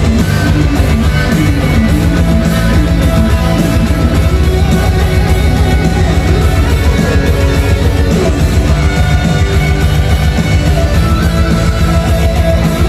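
Live song performance heard through the venue's sound system: a male singer into a handheld microphone over a guitar-led band backing, continuous and loud.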